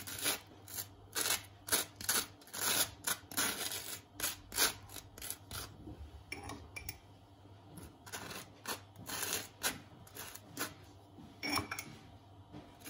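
Table knife spreading butter over toasted sandwich bread: a quick, uneven run of short scraping strokes across the crust.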